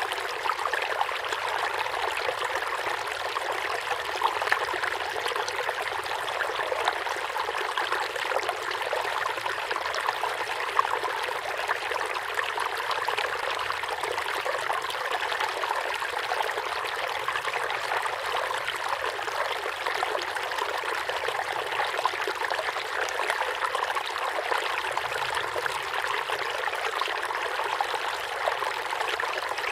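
Shallow river water flowing and splashing over stones: a steady, even rush with fine trickling and bubbling texture.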